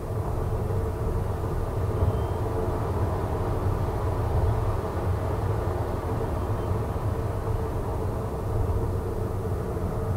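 Steady low rumble of a car sitting with its engine idling at an intersection, heard from inside, with cross traffic passing in front.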